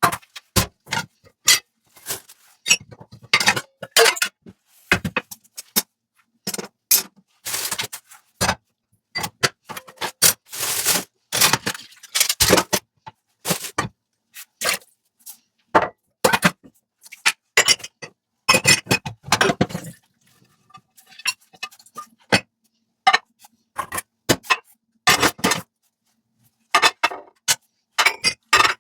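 Dishes, glasses and cutlery clinking, knocking and scraping against each other during hand dishwashing, in many short irregular strikes with brief gaps between them. A few longer swishes come about a third of the way in.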